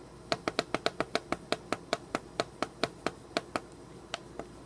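The plastic push buttons on an AcuRite weather station display console, pressed over and over to step through the clock setting. They give really clicky, sharp clicks, about five a second, that slow and thin out to a couple of single clicks near the end.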